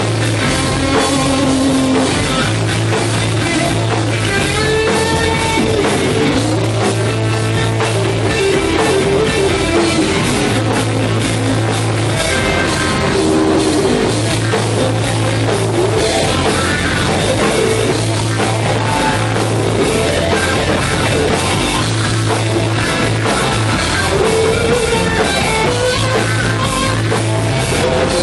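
Punk rock band playing live: electric guitar, bass and drum kit going without a break, the bass line shifting every second or two.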